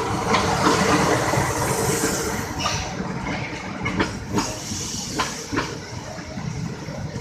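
Argo Anjasmoro passenger train rolling past: a steady rush of steel wheels on rail, loudest in the first couple of seconds and then easing, with a string of sharp clicks as the wheels cross rail joints.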